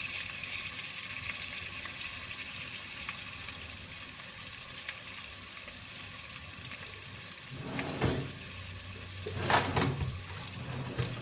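Prawn spring rolls frying in hot sunflower oil in a pan, a steady sizzling hiss. Two brief louder bursts break in about eight and ten seconds in.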